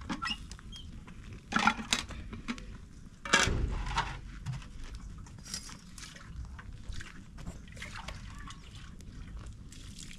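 Water being poured and splashed in short bursts, with small clicks of handling in between; the two loudest splashes come about a second and a half and three and a half seconds in.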